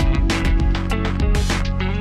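Background music: instrumental notes over a steady beat.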